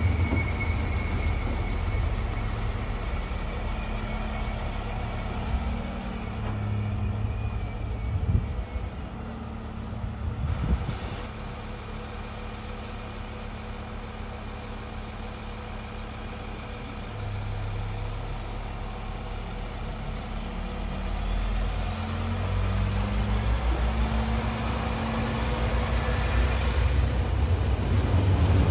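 Arriva Alstom Coradia LINT diesel multiple unit moving through the station, its diesel engines running and growing louder over the second half. A couple of brief knocks come near the middle, and a rising whine appears near the end.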